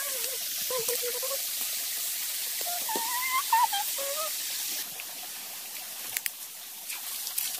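Shallow stream water trickling over rock slabs, a steady hiss, with a few faint wavering calls in the first half.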